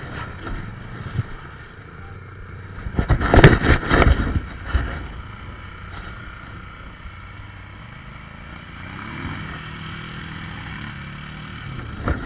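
ATV engines running in a muddy creek, with a burst of loud splashing and knocking about three to five seconds in. Later an engine's pitch climbs as it revs, from about nine seconds in.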